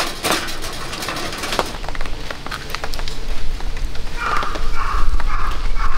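Light metal clicks and clinks as the panels of a folding metal stove windscreen are fitted into place, over a steady hiss of rain. A low rumble sets in about four seconds in.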